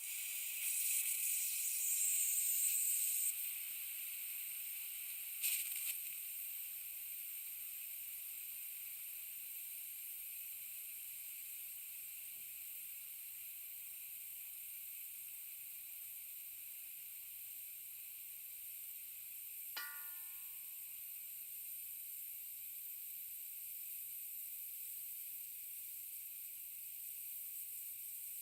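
Compressed air hissing slowly out of a leaking air tank: a steady high hiss, louder for the first three seconds or so, with a brief sharp puff about five seconds in. A short ringing ping comes about two-thirds of the way through.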